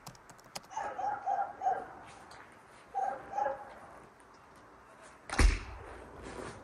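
A dog barking in short groups of two or three barks. About five seconds in, a door bangs shut with a loud thud.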